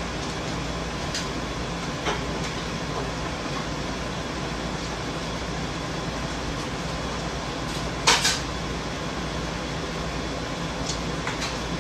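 Kitchen sounds: a steady fan-like hum with a few short, sharp clatters, the loudest a double clatter about eight seconds in.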